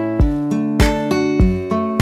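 Background music of plucked-string notes in a steady rhythm, about three notes a second, over a sustained low bass.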